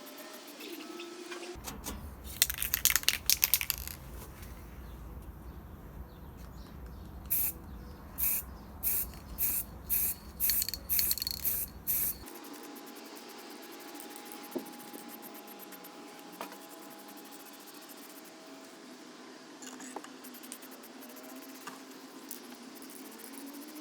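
Hissing spray in bursts: one longer burst about two seconds in, then a run of about eight short ones in quick succession. A few faint small clicks follow.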